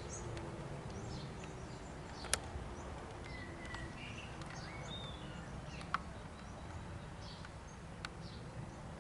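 Distant air raid siren winding down, its falling pitch fading away over the first few seconds, while birds chirp and there are two sharp clicks.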